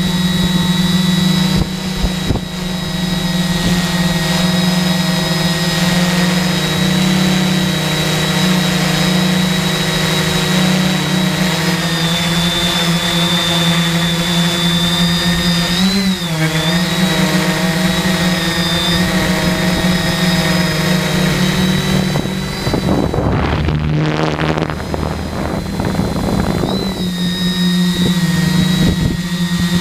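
RC helicopter's motor and main rotor heard from a camera mounted on the helicopter: a steady whine over a strong low hum, the pitch dipping and recovering briefly about halfway through. About three quarters in there are a couple of seconds of rushing noise before the steady whine returns.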